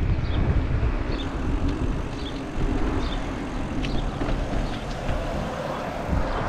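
Wind rumble and tyre and road noise on a GoPro carried on a moving bicycle, with scattered light clicks and rattles.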